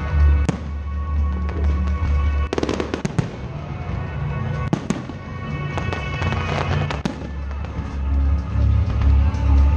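Fireworks bursting in sharp bangs, a quick cluster of them about three seconds in and single ones later, over loud music with a heavy, steady bass.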